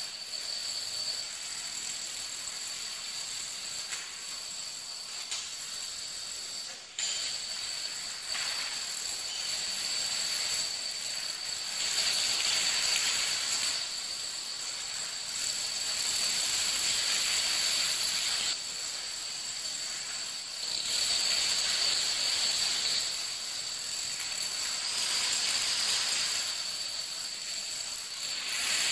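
Long chains of dominoes toppling on a hardwood floor: a dense, fast rattling clatter that swells and fades in waves as different runs and fields go over, with a brief dip and sudden restart about seven seconds in.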